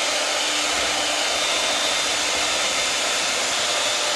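Electric hand mixer running steadily, its beaters whisking chocolate batter in a glass bowl.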